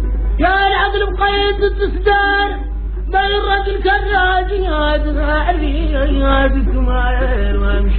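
A voice singing a slow, chant-like melody in phrases, its pitch bending and wavering within each phrase. A steady low hum runs underneath.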